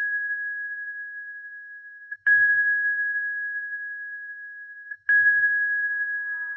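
A single high, pure ding, like a sonar ping, rings and fades slowly. It is struck again twice, about every three seconds, each strike with a soft low thump under it. A fuller ambient music bed begins to swell in near the end.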